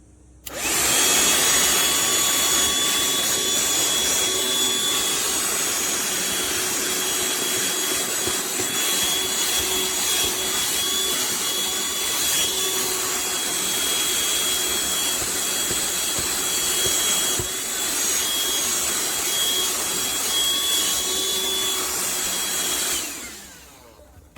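BLACK+DECKER Dustbuster 8V cordless handheld vacuum switched on and running steadily with a high motor whine, then switched off near the end and winding down.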